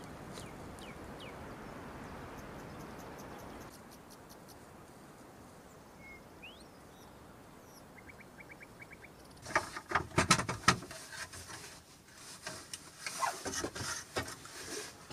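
A steady rushing noise that cuts off about four seconds in, then a few bird chirps, then two bouts of sharp knocks and scraping, the first the louder, starting about nine and a half seconds in.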